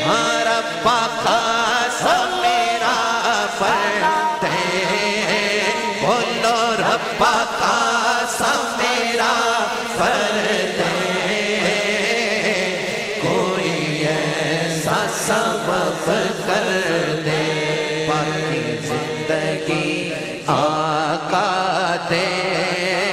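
A male voice chanting a Punjabi naat, a devotional Islamic poem, in long melodic lines with wavering pitch.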